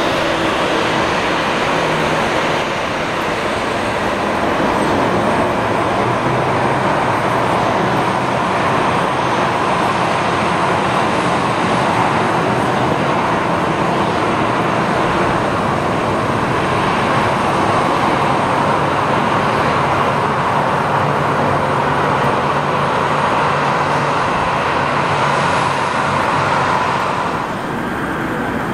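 Twin jet engines of a taxiing Boeing 737 running at low power: a steady, even rushing noise that drops slightly near the end.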